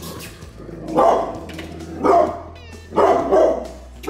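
Pit bull barking loudly over and over, one deep bark about every second.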